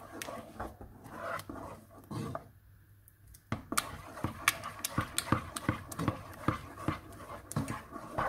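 Wooden spoon stirring thick plantain and oat porridge in a stainless steel pot: rhythmic squelching with sharp clicks of the spoon against the pot, about two a second, the sound of the porridge thickening. The stirring pauses for about a second midway.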